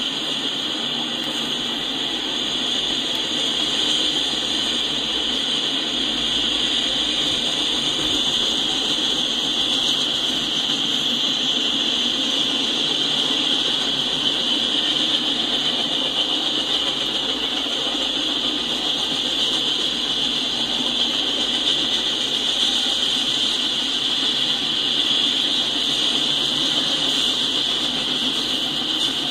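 Freight cars rolling past on the rails: a steady rolling noise of steel wheels on track, with a strong high hiss over a lower rumble.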